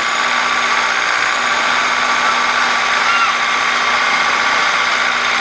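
An engine running steadily, with a loud, even hiss over it.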